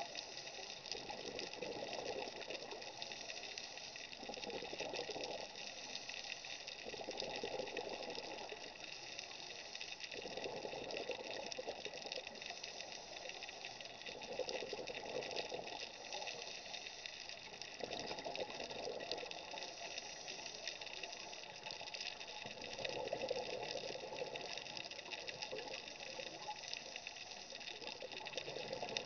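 Scuba breathing heard underwater: exhaled bubbles rushing out of a regulator in surges about every four seconds, over a steady hiss.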